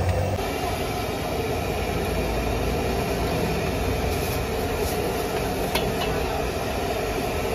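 Steady background rumble and hiss of a busy night-market stall, with one sharp click about six seconds in.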